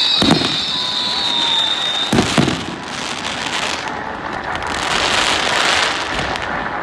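Aerial fireworks: a high whistle fades out over the first two seconds while shells burst with sharp bangs, once just after the start and twice about two seconds in, followed by a few seconds of crackling.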